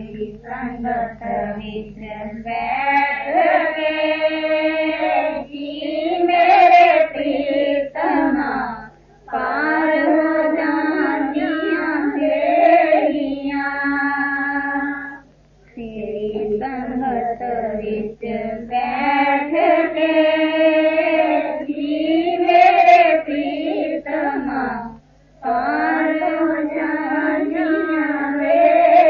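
Voices singing a devotional shabad hymn in long melodic phrases, with three short breaks between phrases, over a faint steady low hum.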